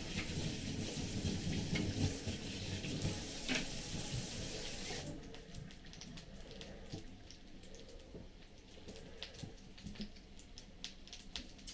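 Kitchen tap running into a steel sink while an unwashed spoon is rinsed under it, turned off abruptly about five seconds in. Faint clicks and knocks follow.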